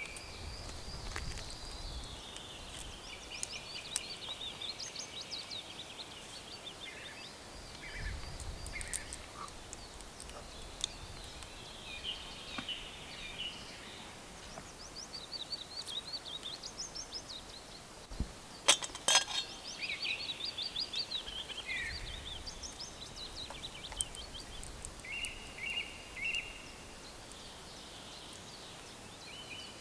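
Songbirds singing in a forest, with short trilling and chirping phrases one after another. A few sharp clicks come about 18 to 19 seconds in.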